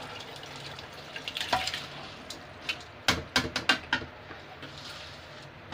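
Soaked rice being tipped from a steel bowl into a pot of boiling water, over a steady bubbling hiss. Sharp metal clinks and knocks of the bowl and ladle against the pot come about a second and a half in, and a louder run of them between about three and four seconds in.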